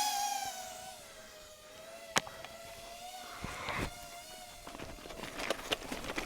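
Camera drone's propellers whining steadily, an insect-like buzz that wavers slightly in pitch, with a sharp click about two seconds in.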